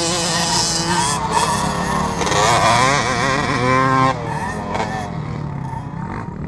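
Honda CR250 two-stroke motocross bike revving hard, its pitch wavering up and down with the throttle, then falling and fading about four seconds in as it passes.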